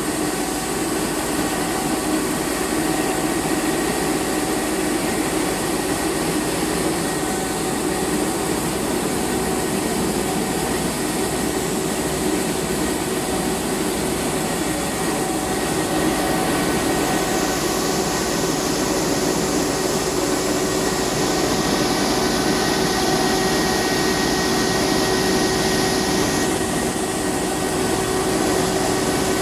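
Rice milling plant machinery running steadily, a continuous mechanical whir with several steady hums. A higher hiss joins about halfway through and cuts off sharply near the end.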